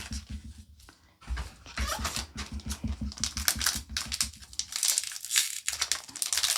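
Thin plastic trading-card packaging being handled and crinkling in a dense run of rapid crackles, starting about a second in.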